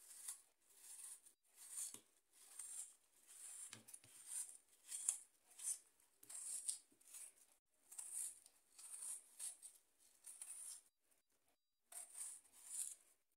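A kitchen knife peeling the skin off a red apple held in the hand: a quiet run of short, crisp cutting strokes, one or two a second, with a short pause near the end.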